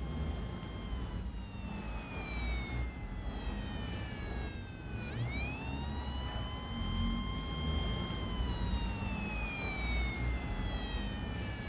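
A wailing siren: its pitch falls slowly, climbs quickly about five seconds in, holds for a couple of seconds, then falls slowly again, over a low steady rumble.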